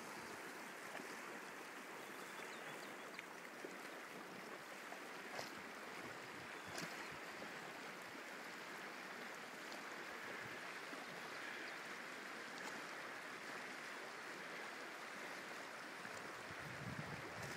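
Steady rushing of the Firehole River's current flowing past, with a couple of faint ticks about five and seven seconds in.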